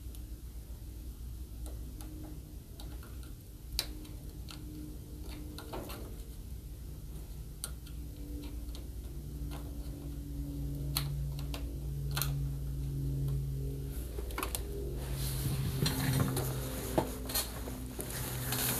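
Scattered small clicks and taps of hands working on a TV's ribbon-cable connectors and tools, over a steady low hum. A low tone comes and goes in the second half.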